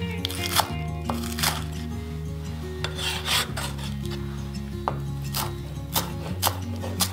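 Chef's knife chopping green onions on a bamboo cutting board: irregular sharp knocks of the blade hitting the wood, with a longer scrape about three seconds in.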